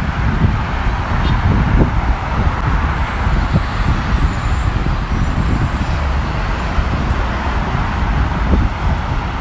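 Steady city street traffic noise, vehicles running and passing.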